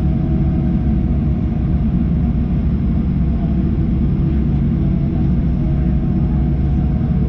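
Inside the cabin of a Boeing 737-800 taxiing: a steady low rumble from its CFM56 engines and the airflow, with a faint steady whine above it.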